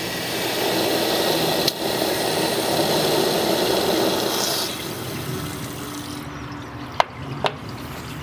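Water from a garden hose running into a truck radiator as it is filled, a steady rushing splash that drops to a quieter flow about four and a half seconds in. Two sharp clicks come near the end.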